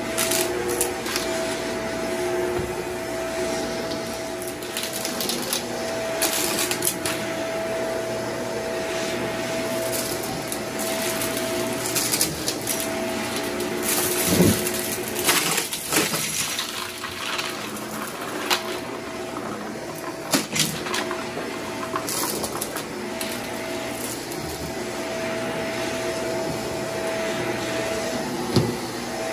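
Upright vacuum cleaner running steadily on carpet, with frequent irregular crackling and clicking as bits of debris are sucked up through it.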